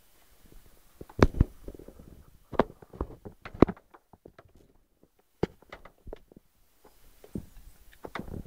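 Handling noise from a handheld camera moved about in the dark: irregular clicks, knocks and rustling, with the loudest knocks about a second in and again around three and a half seconds in, and a short quiet spell in the middle.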